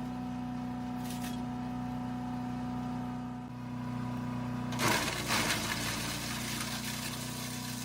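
A Predator wood chipper's small gasoline engine running at a steady speed, with a brief crackling burst about five seconds in as a branch goes through the chipper.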